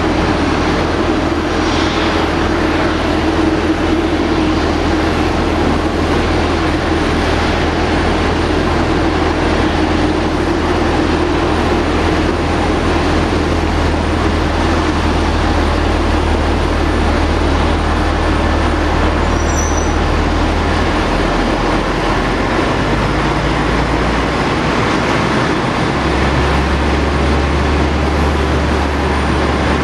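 Steady jet aircraft noise on an airport apron: a continuous, loud roar with a low hum and no distinct events.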